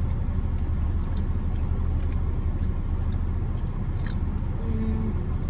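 A steady low rumble, with a few faint crunches and clicks as breaded buffalo chicken nuggets are bitten and chewed.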